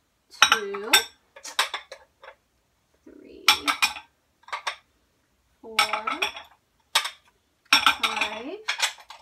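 Ceramic saucers and teacups clinking and scraping against each other as they are handled and restacked on a cupboard shelf: a series of sharp clinks, some with a short ring.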